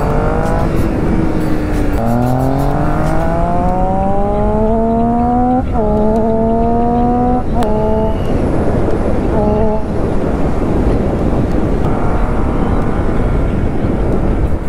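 Triumph Street Triple S's inline three-cylinder engine accelerating hard through the gears: each gear is a rising pitch that drops sharply at the upshift, with four or five shifts in the first ten seconds. The engine then settles into steady running under heavy wind rush on the microphone.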